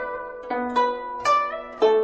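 Background music: a plucked string instrument playing a melody, about four notes struck in turn, each ringing and fading.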